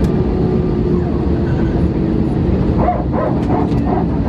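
Steady low rumble of cabin noise inside an Airbus A320-200 as it taxis to the gate with its engines idling, a faint whine in it slowly dropping in pitch. About three seconds in, a voice in the cabin starts over it in short broken bursts.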